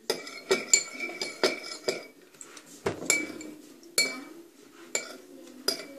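Metal teaspoon stirring in a porcelain bowl, clinking against its sides with short ringing chinks: quick clinks for about two seconds, then a few single ones about a second apart.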